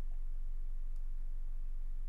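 Low steady hum with a single faint computer mouse click about a second in.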